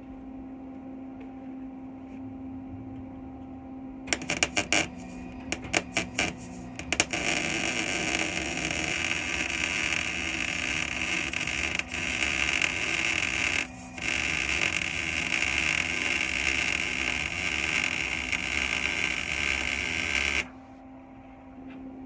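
Wire-feed (MIG) welder arc welding steel tubing to a car's frame: a few short stuttering arc starts about four seconds in, then a steady crackling, sizzling weld bead with a brief break partway through, cutting off abruptly near the end.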